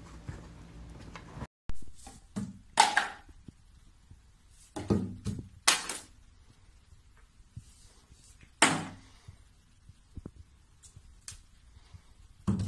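Plastic toiletry bottles knocked over on a bathroom shelf by a cat's paw: a string of separate knocks and thuds, the loudest about three seconds in and again near nine seconds.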